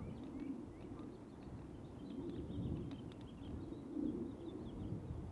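Open-air desert dawn ambience: a low, uneven wind rumble on the microphone with small birds chirping faintly and repeatedly in the background.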